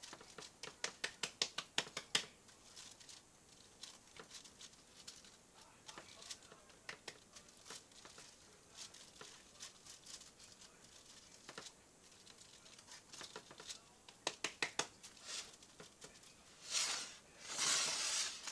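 Greased hands patting and slapping a raw ground-turkey meatloaf into shape, in quick runs of wet pats, about five a second at the start. Near the end come two longer rustles.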